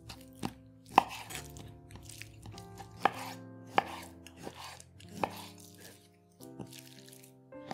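Chef's knife cutting through raw chicken breast and knocking down onto a wooden cutting board, one sharp knock every second or so at an uneven pace. Soft background music plays underneath.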